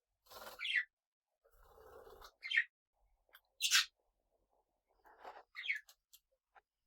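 Small pet parrots calling: about five short chirps, most sliding down in pitch, some with a rough scratchy sound just before them.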